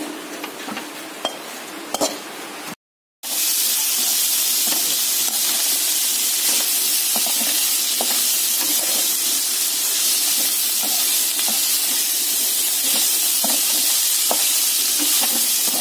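Silkworm pupae frying in oil in a wok, sizzling, with a slotted metal spatula clicking and scraping against the pan as it stirs. After a brief dropout about three seconds in, the sizzling is louder and steady.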